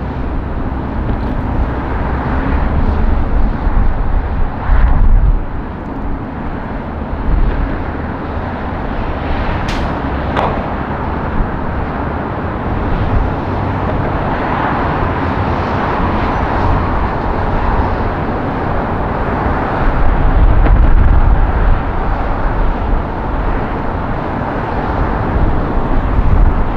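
Jet airliner engines roaring, a steady dense roar that swells around the middle, with gusts of deep rumble underneath.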